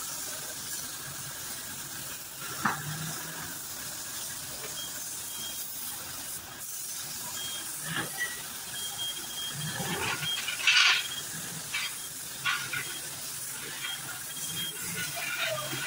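Compressed-air gravity-feed spray gun hissing steadily as it sprays paint, with a few sharp knocks, the loudest about two-thirds of the way through.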